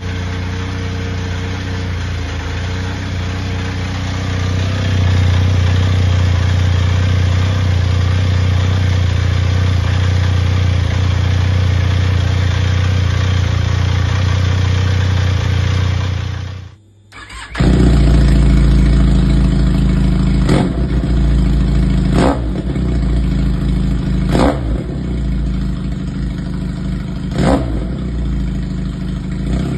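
Benelli 502C's 500 cc parallel-twin engine idling steadily through a MIVV de-cat exhaust. After a short break at a cut, about two-thirds of the way in, the engine idles through a single silencer with a silver heat shield and is blipped five times, each a quick rise and fall in revs.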